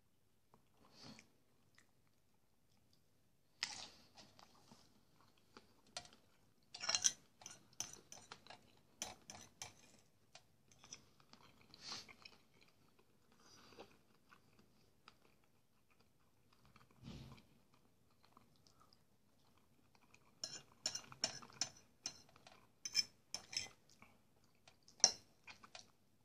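Close-up chewing of fried sausage and porridge: faint, irregular clusters of short wet clicks and crunches, with quiet pauses between mouthfuls.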